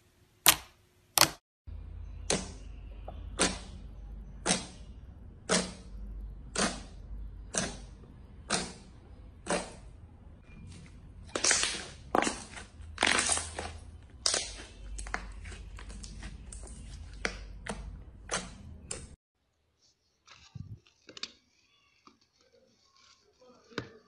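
Slime being poked and pressed by hand, giving sharp pops and clicks about once a second that come faster in the middle, over a low steady hum. The hum and pops stop suddenly, leaving faint squishing crackles.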